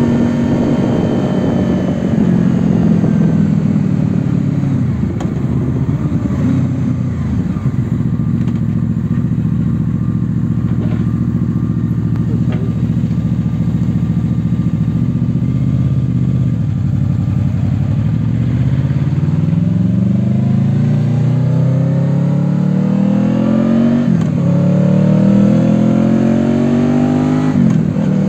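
Honda VFR800X Crossrunner's V4 engine heard from the rider's seat: it winds down as the bike slows, runs at low revs for several seconds, then accelerates hard, with two upshifts near the end, each a sudden drop in pitch before it climbs again.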